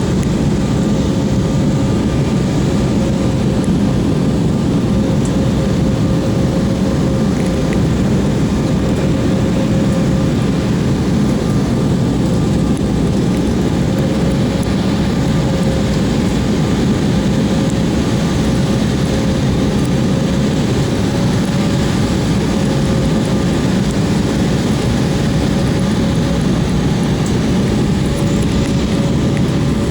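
Steady airliner cabin noise: a low rumble with a thin steady whine over it.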